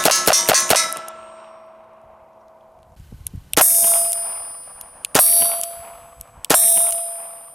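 Shots from a Smith & Wesson Model 317 .22 LR revolver, each hit leaving a steel target ringing. A fast string of shots ends about a second in and its ringing fades, then three single shots follow about a second and a half apart, each with a ringing clang from the steel.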